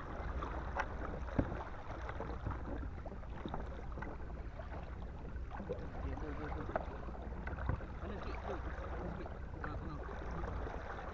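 Kayak paddling on open water: paddle blades dipping and splashing irregularly, water slapping against the hull, over a steady low wind rumble on the microphone.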